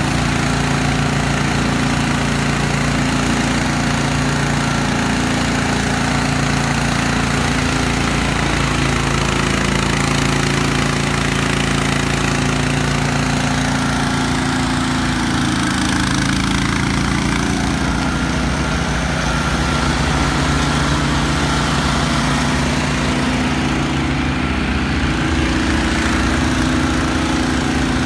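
Small gasoline engine on a wheeled pressure-washing machine running at a steady speed, with a steady hiss over it.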